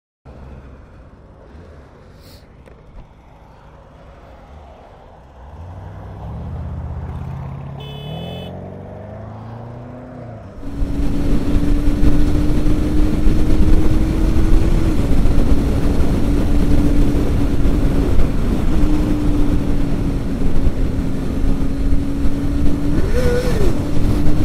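Motorcycle engine accelerating, its pitch climbing in steps, then about ten seconds in loud wind noise on the camera microphone takes over, over a steady engine note at speed that rises briefly near the end. The bike is a 2000 Honda CB250 Hornet, a 250 cc inline-four.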